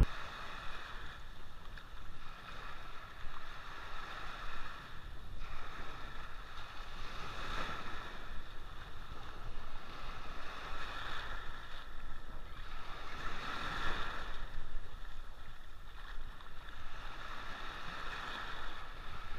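Small waves breaking and washing up a sandy beach, the surge swelling every few seconds, with a low wind rumble on the microphone.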